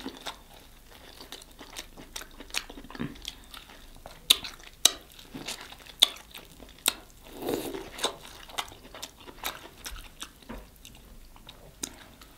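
A person biting into and chewing sauce-coated corn on the cob close to the microphone: a string of short, sharp clicks and chewing noises, loudest about four to seven seconds in.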